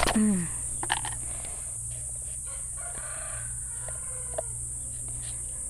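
A sharp knock, then faint chicken calls, over a steady high insect drone.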